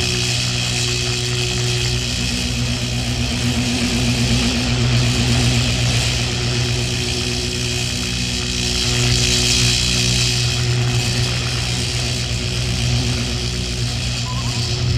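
Electrical buzzing and sparking: a steady low electric hum under a crackling hiss that swells a couple of times.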